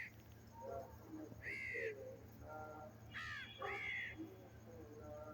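Crows cawing: three harsh arched caws, one about a second and a half in and a quick pair near the middle, with fainter, shorter bird chirps between them over a low steady hum.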